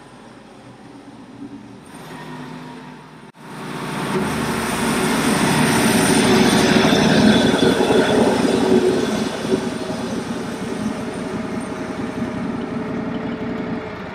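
Wood-Mizer LT15 Wide portable bandsaw mill running, then its blade sawing through a poplar log. The sawing comes in abruptly about three seconds in, builds within a second to a loud, steady noise with a low hum, and eases slightly toward the end.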